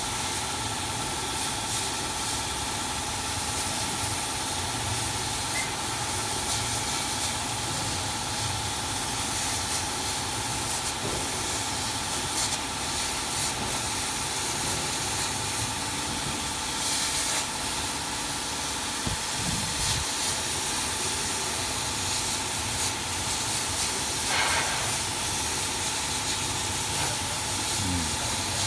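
CO2 laser cutting machine running while it cuts fabric: a steady airy hiss with a steady whine underneath.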